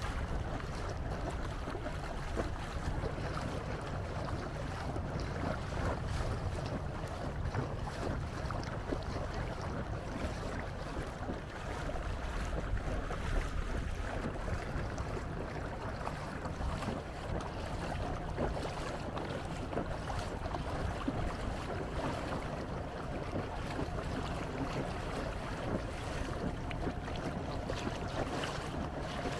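Steady wind rumble on the microphone and water noise from a canoe under way, with a faint steady whine in the second half.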